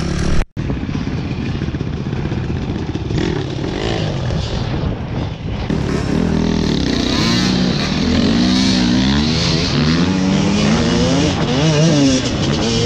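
Off-road dirt bike engines revving up and down as the bikes climb a rough hillside track, with a brief dropout about half a second in.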